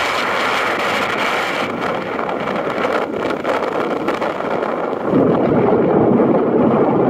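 Diesel engine of a site dumper running as it drives through shallow water on a beach. It grows louder about five seconds in.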